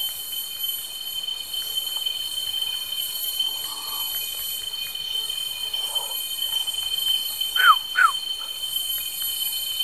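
Steady high-pitched drone of insects such as cicadas or crickets. About two-thirds of the way in come two short falling chirps from an unseen animal.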